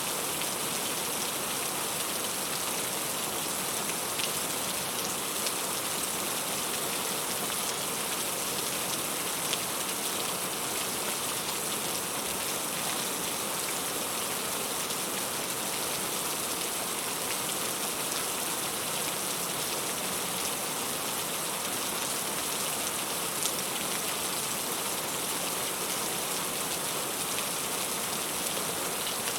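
Steady rain falling, with scattered individual drops ticking on a surface.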